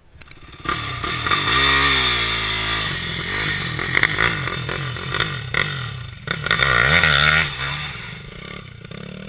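Yamaha YFZ450R quad's single-cylinder four-stroke engine revving hard under load, its pitch climbing and falling again and again as the throttle is worked on the climb, with a few sharp knocks along the way. It eases off near the end.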